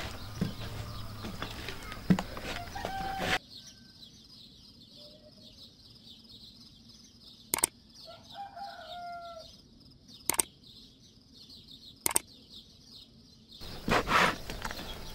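Hands kneading soft, wet bread dough in a metal bowl, squelching and slapping. About three seconds in this gives way to a quieter stretch with a steady high chirring, where chickens call a few times and three sharp clicks sound. The kneading comes back near the end.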